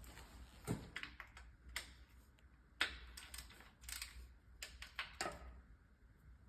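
Irregular light clicks and taps of hand tools and bolts against metal, about a dozen scattered hits, the loudest a little under three seconds in and again about four seconds in.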